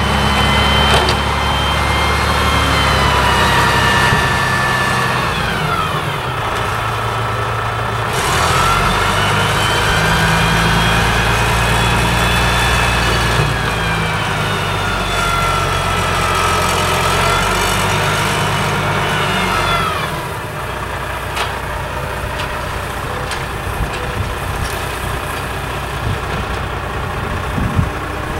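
Diesel dump truck's engine revved with a high whine that rises and falls in pitch twice as its hydraulic hoist tips the bed up to dump asphalt. Then the engine drops back to a steady idle about two-thirds of the way through.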